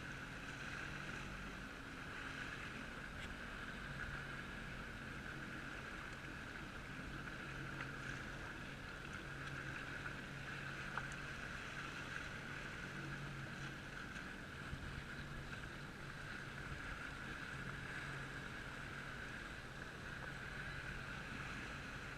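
Jet ski engine running steadily at low speed, an even hum with no change in pitch, with a single faint click about halfway through.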